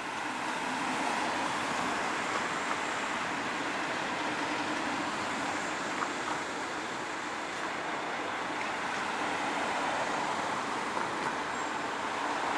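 Airbus A321 airliner passing low overhead on landing approach, its twin turbofan engines making a steady rushing jet noise with a faint low hum. It swells over the first second or so, then holds level.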